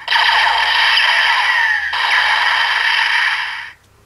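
DX Transteam Gun toy playing a loud electronic sound effect through its built-in speaker, with sliding tones, in two parts that break about halfway and stop shortly before the end. This is the generic Full Bottle sound that the gun gives for the Rider Evol Bottle.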